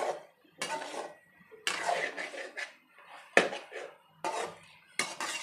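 A metal spatula stirring and scraping through egg manchurian in thick sauce in a metal kadai. There are about six separate strokes, a couple of them starting with a sharp clank of spatula on pan.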